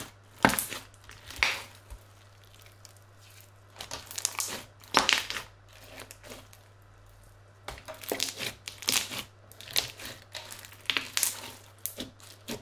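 Crunchy slime with small beads mixed in, squeezed and pressed by hand, giving bursts of crunching and crackling with short quiet pauses between squeezes.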